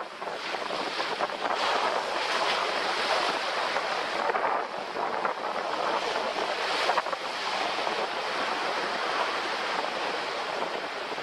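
Ocean surf: small waves breaking and foamy wash running up a sandy beach and draining back, a continuous hiss that swells and eases slightly with each wave.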